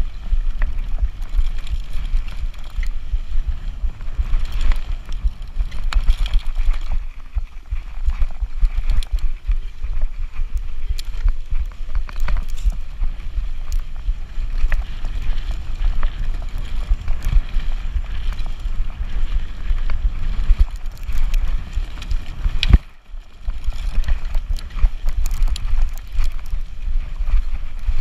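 Wind buffeting the microphone of a handlebar-mounted camera on an e-bike riding fast over a rough forest trail: a continuous low rumble scattered with rattles and knocks from the bike over bumps. One loud knock comes about three quarters of the way through.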